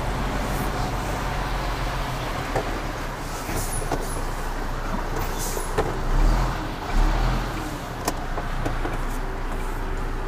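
Heavy goods lorry's diesel engine running at low speed, heard from inside the cab, with a few light clicks and two brief low thumps about six and seven seconds in.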